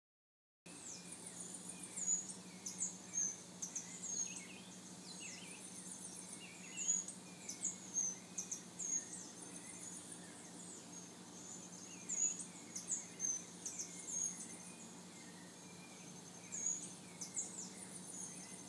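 Outdoor ambience of small birds chirping: many short, high calls in irregular clusters, over a steady low hum.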